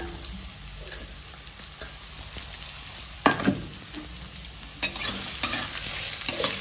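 Chopped green beans, carrot and onion frying in oil in a steel kadhai, with a steady sizzle and a sharp knock about three seconds in. From about five seconds in, a spatula stirs and scrapes the pan, and the sizzle grows louder and busier.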